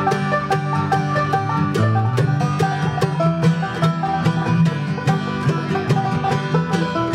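Bluegrass string band playing, the five-string banjo's rapid picking out front over upright bass, mandolin and acoustic guitar.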